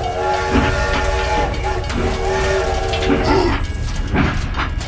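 Toy train's electronic horn sounding two long held chords, followed near the end by a few sharp clattering knocks.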